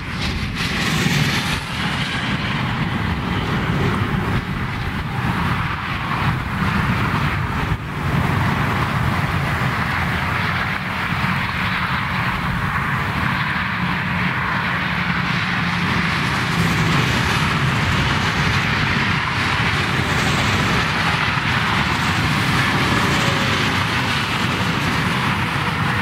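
Dense autobahn traffic: a steady, loud rush of tyres and engines from many vehicles passing at speed.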